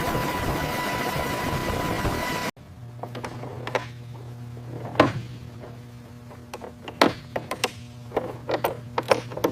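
A loud, steady machine noise with a constant whine cuts off suddenly about two and a half seconds in. It gives way to a quieter low hum with scattered sharp mechanical clicks and knocks.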